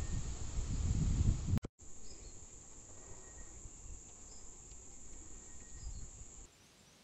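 Steady high-pitched insect chorus trilling in the trees, with a low rumble in the first second and a half; both cut off abruptly about six and a half seconds in.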